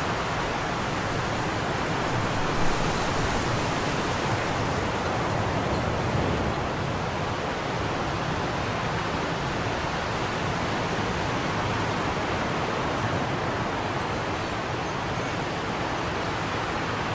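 Fire burning in a fireplace with a steady rushing hiss and one sharper pop about two and a half seconds in.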